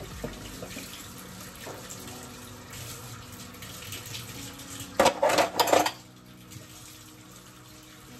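Kitchen tap running into a stainless steel sink as dishes and glasses are rinsed under it. About five seconds in there is a short burst of loud clattering of dishes.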